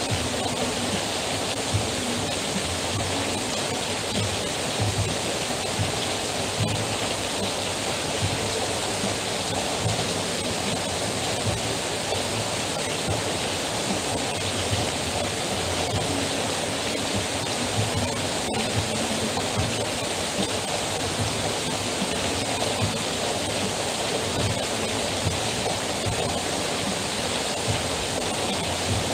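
Heavy rain pouring down and streaming off the edge of a roof canopy: a steady, dense hiss of falling and splashing water.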